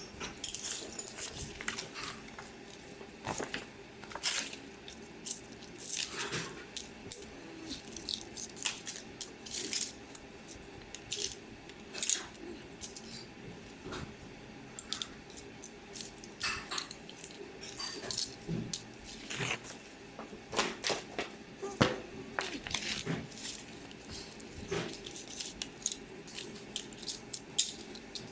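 Irregular clicks, taps and short scrapes from small metal and plastic parts and hand tools being handled and worked, over a faint steady hum.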